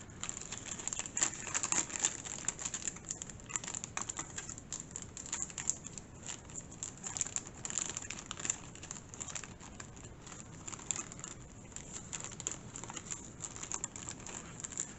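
Crinkling and rustling of a clear resealable plastic bag being handled, in irregular crackles that are busiest in the first half and thin out later.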